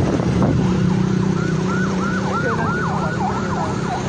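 Electronic siren-style warble, its pitch sweeping up and down about three times a second, starting about a second in, over a steady motor engine hum and road noise.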